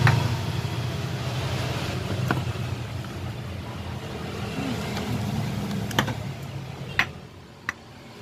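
Steady low rumble of road traffic, with about five sharp knocks of a large knife chopping down through a thick martabak onto a cutting board, the loudest about seven seconds in.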